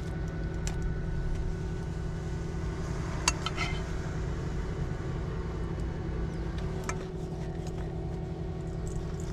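A steady low mechanical hum with a few fixed pitched tones, like a small motor or fan, switches on at the start and runs on. A single sharp clink of tableware comes about three seconds in.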